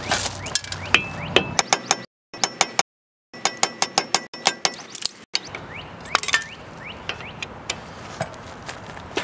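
Quick runs of light metallic taps: a screwdriver set in a seized Phillips brake rotor retaining screw being struck to shock the stuck screw loose. The tapping drops out completely twice, briefly, between about two and three seconds in.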